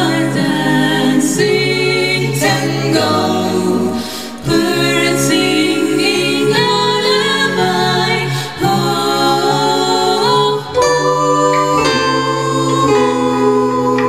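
A mixed vocal ensemble of women and a man singing in close multi-part harmony, with held chords that shift every second or so. There are short breaks between phrases about four, eight and a half and ten and a half seconds in.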